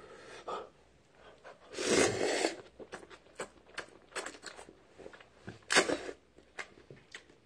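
A man slurping ramen noodles from chopsticks and chewing them: two loud slurps, about two seconds in and again near six seconds, with wet chewing and lip-smacking clicks between.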